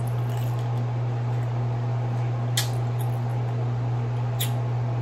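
A steady low hum throughout, with two small sharp clicks, one about halfway through and one near the end, from fingers picking at a piece of king crab shell.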